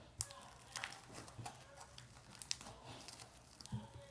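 Scattered soft clicks, crackles and squelches of handling as homemade borax-and-glue slime is worked out of a bottle.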